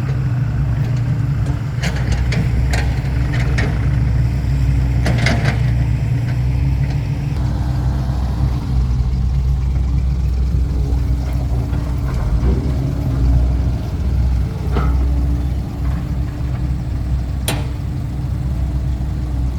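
Heavy diesel engines of an excavator and dump truck running steadily at a low, even pitch. A few sharp knocks are scattered through.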